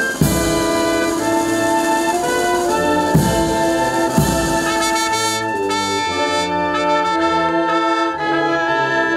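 Brass band playing slow, sustained chords, with three heavy drum-and-cymbal strokes in the first half.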